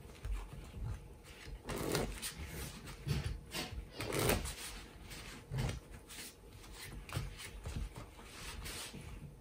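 A deck of Impossible playing cards being shuffled on a cloth close-up mat: short rustles of the cards riffling and sliding, with light taps as the halves are cut and squared, the loudest about two and four seconds in.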